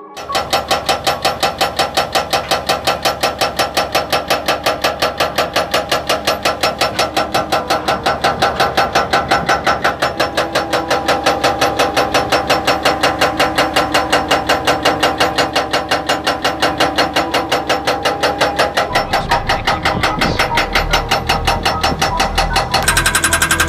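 Hydraulic breaker on an excavator hammering in a rapid steady rhythm, about four to five blows a second.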